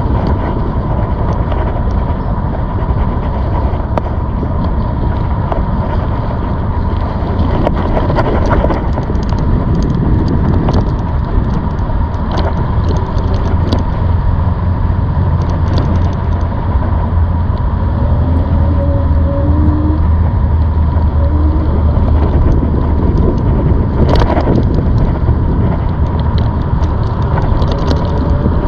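Riding a ZOOZ electric bike: steady rumble of wind on the microphone and rolling noise, with a thin steady high whine throughout and a single sharp click late on.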